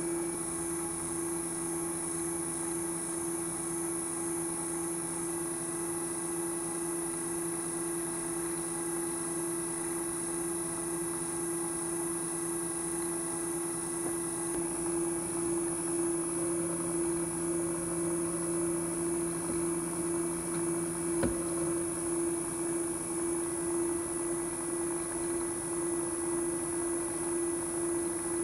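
Drill press running with a steady whine while a spot drill marks hole positions in an aluminium block. A single sharp click about 21 seconds in.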